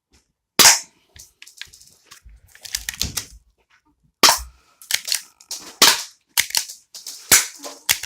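Cheap spring airsoft pistol being worked by hand, cocked and snapped over and over: a string of sharp plastic clicks and snaps, the loudest about half a second in and a quick run of them in the second half. The pistol is malfunctioning, which the owner takes for double feeding of BBs.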